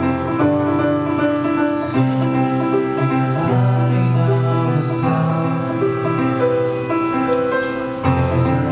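A live band playing: keyboard chords held over electric bass notes, the chords changing every second or two, with a brief hiss about five seconds in.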